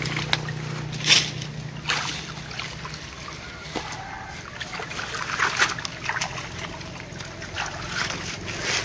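Canal water splashing, dripping and sloshing as a wet fishing net is hauled out of the water, with a few sharp splashes, the loudest about a second in. A low engine hum fades out about three seconds in.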